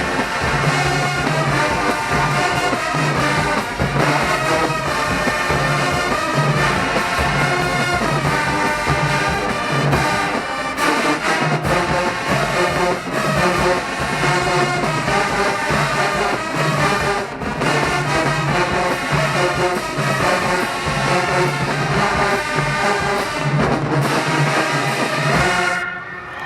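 Marching band playing a loud brass-heavy tune: trumpets and trombones over a repeated deep bass figure, with drums. The music stops abruptly near the end.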